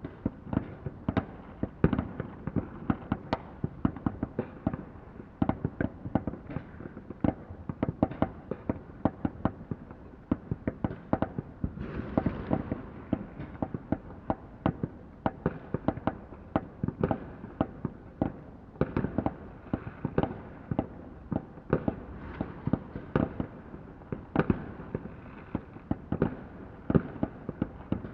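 Many fireworks going off at once, an irregular run of sharp bangs and pops several times a second with no let-up.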